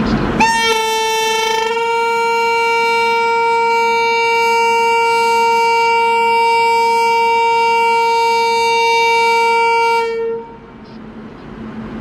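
WAP-7 electric locomotive's horn sounding one long, steady blast of about ten seconds that settles onto its pitch as it starts and then cuts off.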